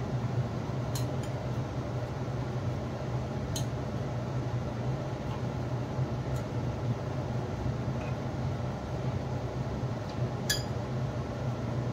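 Steady low hum of a room fan, with a few light clinks of dishes and a spoon, about four over the stretch, the loudest near the end.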